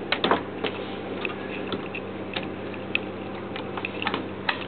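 An RV refrigerator door being shut, with a sharp clack of the latch just after the start. Scattered light clicks and ticks follow over a steady low hum.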